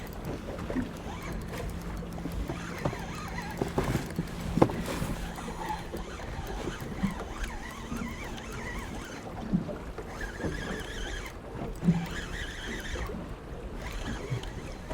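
Strong wind on the microphone and waves against a small boat, with a few sharp knocks of gear in the boat, the loudest about four and a half seconds in and again near twelve seconds. A low steady hum runs under the first six seconds.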